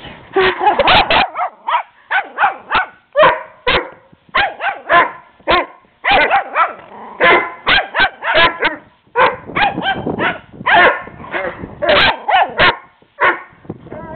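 Small Shih Tzu puppy barking repeatedly at a larger dog, a fast string of sharp barks, a few a second, broken by brief pauses.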